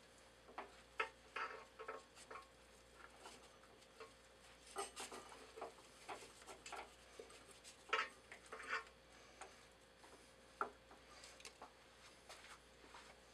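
Soft, irregular handling sounds: a wet paper towel being pressed and dabbed around a hole saw on a cast iron plate, with light taps and wet patting, over a faint steady hum.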